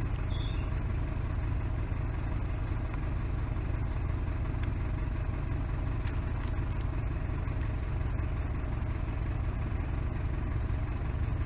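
Isuzu D-Max pickup engine idling steadily, with a few faint ticks over the top.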